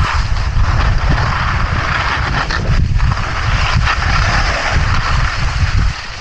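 Skis sliding and scraping over hard-packed, icy snow during a fast downhill run, a steady hiss, with gusty wind rumbling over the microphone.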